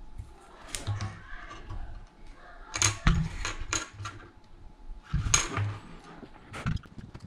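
A small circuit board and hand tools being handled and set down on a wooden desk: a few sharp knocks and clicks with soft handling rumble between them, the loudest about three seconds in and again a little after five seconds.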